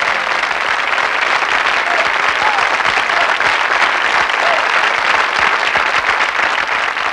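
Studio audience applauding: the steady clatter of many hands clapping at once, right after a song ends.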